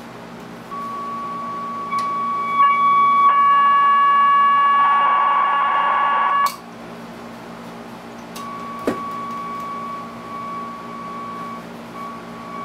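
Homemade 1920s tube radio's loudspeaker howling with a steady, high whistle that sets in about a second in and grows louder and richer in overtones, then cuts off abruptly near the middle. After a click, a weaker whistle at the same pitch comes back, breaking up now and then. The rewired reflex circuit is breaking into oscillation.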